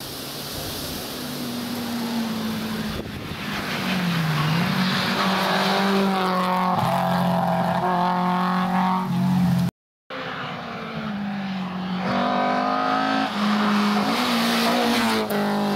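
Historic rally cars at full throttle on a special stage, engines revving hard with the pitch climbing and shifting as they change gear, over road and tyre noise. The sound cuts out briefly about ten seconds in, then a second car comes through revving the same way.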